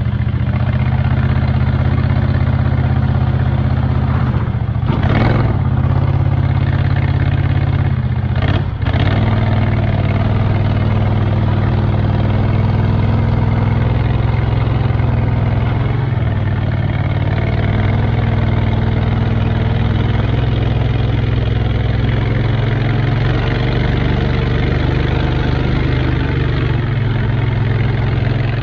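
Predator 670cc 22 hp V-twin engine running steadily through its stock muffler with the baffles gutted out. Two quick revs come about five and eight and a half seconds in.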